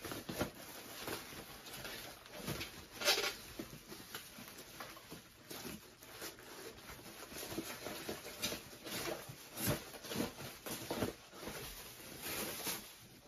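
Plastic bubble wrap rustling and crinkling as it is handled and pulled away from a package, with irregular crackles throughout.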